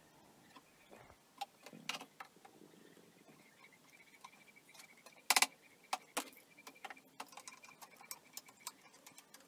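C-clamps being set and screwed tight on glued wooden strips: scattered light clicks and knocks of metal clamp parts against wood, the loudest about five seconds in.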